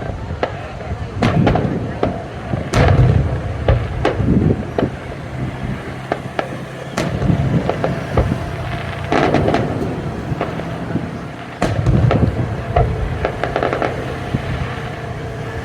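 Fireworks show going off: a dense, irregular run of sharp bangs and crackles, with several deeper booms from larger shells bursting.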